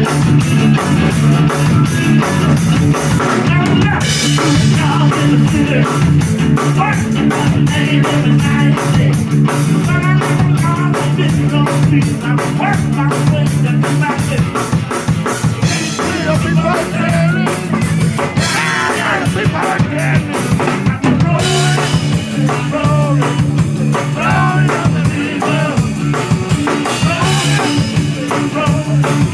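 Live blues band playing, with a drum kit keeping a steady beat under bass and bending lead lines.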